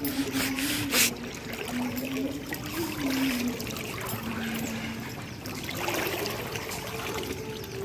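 Floodwater trickling and sloshing, with a few splashes in the first second. Faint background music of low held notes runs underneath.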